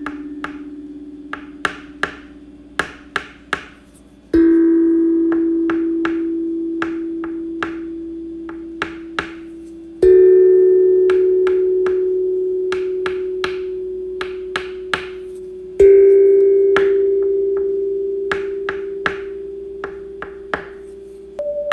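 Bell-like chime tones, each struck and left ringing as it slowly fades, about every five to six seconds and each a step higher in pitch than the last, with sharp clicks scattered between them.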